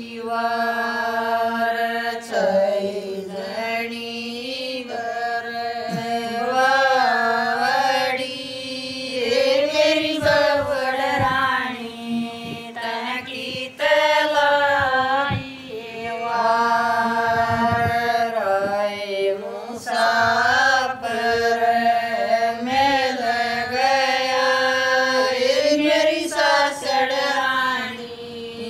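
Women singing a Haryanvi Sawan (rainy-season) folk song of separation, unaccompanied. The melody moves in long drawn-out lines with wavering held notes, broken by short pauses for breath.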